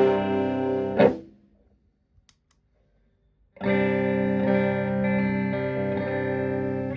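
Electric guitar (Stratocaster) through a Höfner germanium preamp pedal into a Twin Reverb-style amp: a ringing chord is muted about a second in, then after a silent gap a new chord is struck at about three and a half seconds and left to sustain until it is stopped near the end.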